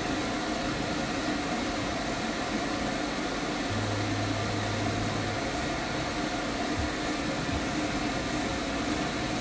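Pet-grooming stand dryer blowing a steady stream of air, a constant even rush with a faint hum in it.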